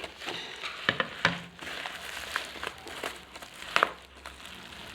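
Packing material being handled and pulled open, crinkling and rustling irregularly, with a few sharper crackles.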